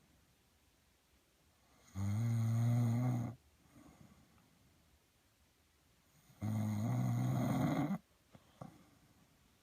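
A man snoring: two long snores about four and a half seconds apart, each lasting about a second and a half.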